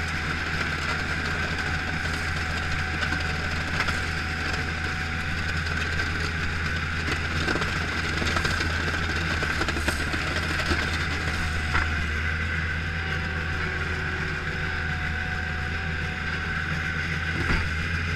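Bobcat skid-steer loader's diesel engine running steadily while plowing snow, heard from the cab, with a few short knocks scattered through.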